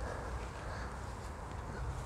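Quiet outdoor background noise in a park with a steady low rumble.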